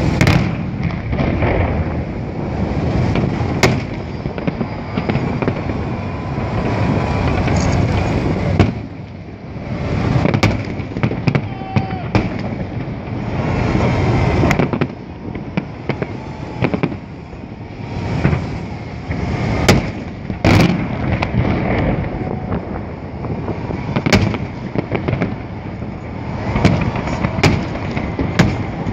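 Holiday fireworks salute: sharp bangs of bursting shells every few seconds over a continuous rumble and crackle that eases off briefly now and then.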